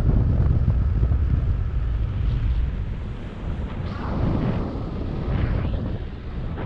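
Wind buffeting the microphone of a camera carried in flight under a paraglider, a dense low rumble that swells and eases.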